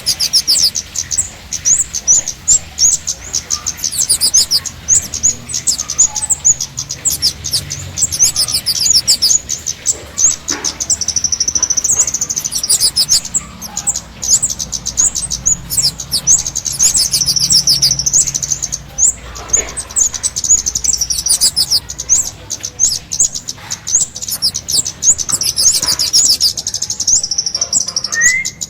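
Songbird chirping in fast, high-pitched chattering trills without a break, with a short held whistle now and then. It is a bird-trapper's lure call (pikat) for the kemade.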